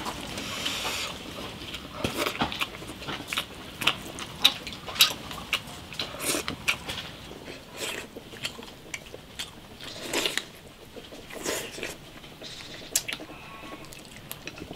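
A person eating with chopsticks from a bowl of rice and stew: close chewing and mouth smacks, mixed with many short, irregular clicks of chopsticks against the bowl.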